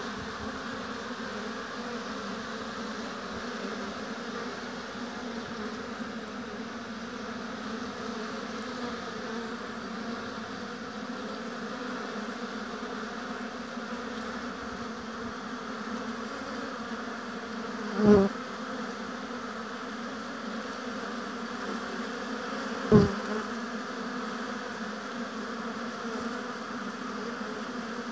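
Honeybees at a hive buzzing in a steady, dense hum. Twice, about five seconds apart, a brief louder buzz stands out over it.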